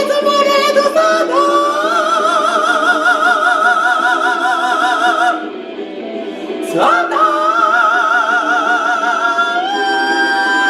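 Karaoke singing over a rock backing track: a long held note with wide vibrato, a short break about five and a half seconds in, then a swoop up into another long held note.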